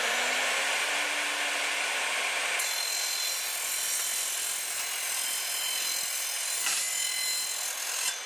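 Evolution R255SMS multi-material sliding mitre saw with its 24-tooth blade running at speed and cutting through thin aluminium stud channel. The cutting noise is loud and continuous, with a steady high-pitched ring over it.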